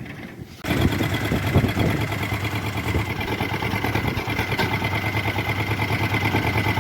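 The small engine of a mini Swaraj 855 tractor running at a steady idle. It comes in abruptly about two-thirds of a second in, a little heavier for the first second, then runs evenly.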